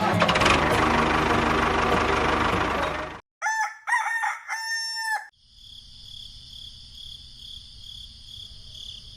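A loud, dense rush of noise lasting about three seconds cuts off. A rooster then crows in three gliding, broken phrases, and a steady high-pitched buzzing follows.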